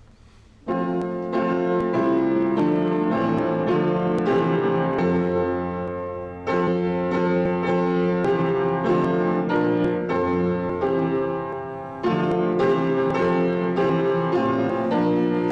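Piano playing a slow offertory piece of sustained chords and melody. The music starts a little under a second in, with brief pauses between phrases about six and twelve seconds in.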